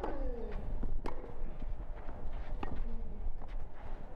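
Tennis rally on a clay court: the ball struck by rackets, sharp knocks about once a second.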